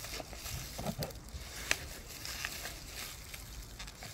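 Plastic bubble wrap crinkling and rustling as it is pulled open by hand around a wrapped fossil, with small crackles and one sharper click nearly two seconds in.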